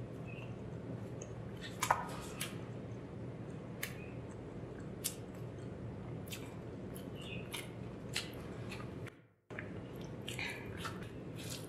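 Close-miked chewing of rice and chicken curry, with scattered sharp wet mouth clicks over a steady low hum. The sound drops out to silence briefly just after nine seconds, then the clicks go on as fingers gather sticky rice.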